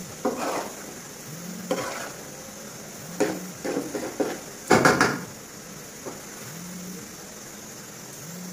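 A metal spoon stirring and scraping grated green-mango pickle around a metal pan, in separate strokes every second or so, the loudest about five seconds in, over a faint steady sizzle from the hot sugar syrup.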